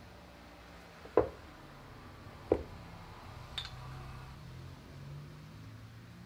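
Two sharp knocks about a second and a half apart, then a lighter click, from engine parts (connecting rod, piston and pin) being handled and knocked on a workbench, over a low steady hum.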